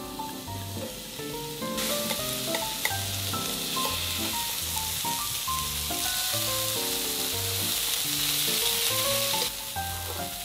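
Sliced onion and carrot sizzling in hot oil in a nonstick frying pan as they are stirred with wooden chopsticks; the sizzle starts about two seconds in and drops away near the end. Background music plays throughout.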